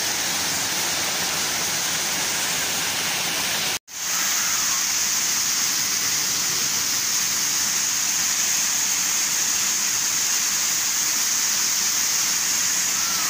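Small waterfall splashing over rocks into a pool: a steady rush of falling water, cut off for an instant about four seconds in.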